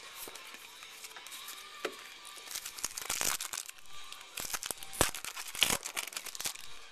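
A trading card pack's wrapper crinkling and tearing as it is ripped open and handled, in a run of crackles with a few sharp snaps in the second half.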